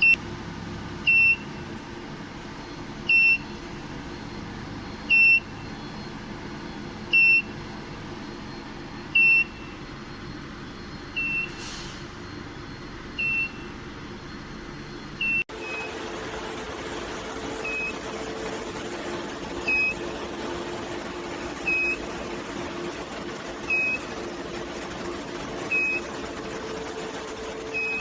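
Electronic beeper giving one short, high beep about every two seconds over a steady machine hum.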